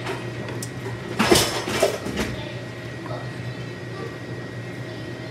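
Kitchen handling noise: a sharp clatter about a second in, then a couple of smaller knocks, over a steady low hum.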